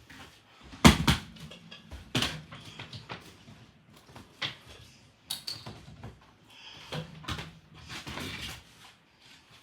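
Electrical plugs, cords and a power strip being handled, unplugged and plugged in: a string of irregular knocks and clicks, the loudest about a second in, with handling rustle between.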